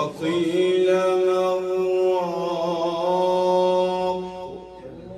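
A man chanting Quranic recitation (tajwid), holding one long melodic note for about four seconds with a slight ornamental waver before it tails off.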